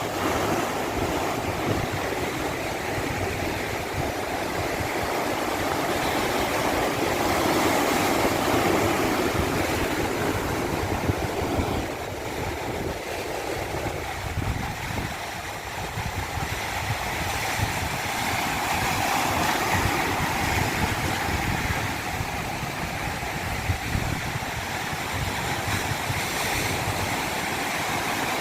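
Continuous rush of water, swelling and easing slowly over several seconds.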